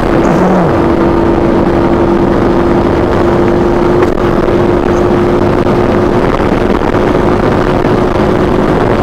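Vento GT250 motorcycle engine running hard at high revs on full throttle, its pitch creeping slowly upward as the bike gains speed toward 100 km/h, over steady wind and road rush.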